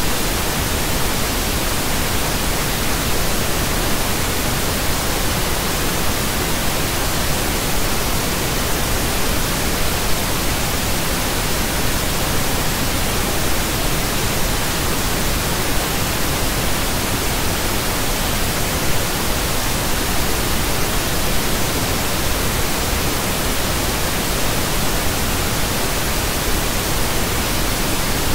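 Continuous pink noise: a steady, even hiss spread across the whole range from low to high, unchanging throughout.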